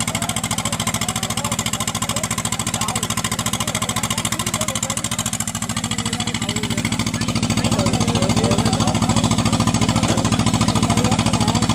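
Diesel engine of a rice combine harvester running steadily with a fast, even chugging pulse, growing louder about seven seconds in.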